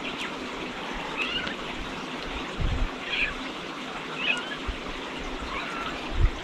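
A kitten mewing in four short, high calls over a steady background hiss, with a couple of low thumps, the loudest near the end.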